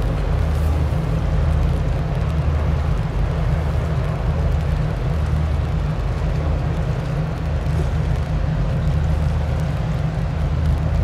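The patrol ship Fuso (PLH21) passing close by, heard as a steady low engine drone with a hum that swells and eases slightly.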